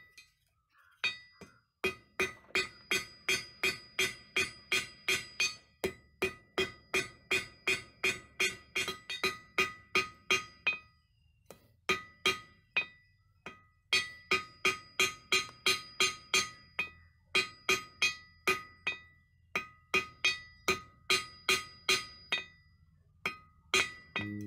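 Ball-peen hammer striking a small steel arrowhead blank on a section of railway rail used as an anvil, about two to three blows a second in runs broken by short pauses. Each blow rings with the same clear metallic tones.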